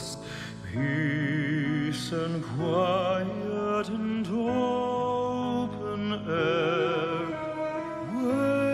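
Music: a solo voice singing long held notes with wide vibrato, sliding up into each new note, over a steady instrumental accompaniment.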